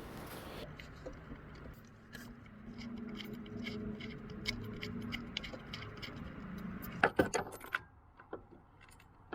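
Small metallic clicks and taps from a socket and the new reverse light switch being handled and threaded into the transmission, with a louder cluster of clicks about seven seconds in. A faint low hum runs through the middle.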